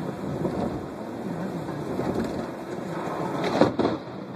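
Car driving on a rain-soaked road, heard from inside the cabin: steady road and tyre noise, with a sudden loud crack about three and a half seconds in.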